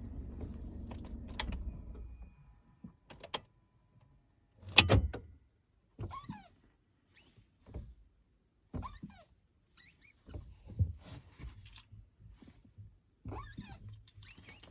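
Clutch of a 2022 Kia Rio squeaking as it is worked: several short squeaks a few seconds apart, each gliding in pitch. A loud thunk comes about five seconds in, and a low rumble sits under the start and the end.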